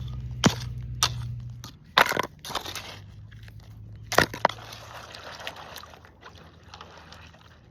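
Rocks and gravel clattering and scraping, with several sharp knocks in the first half that thin out towards the end.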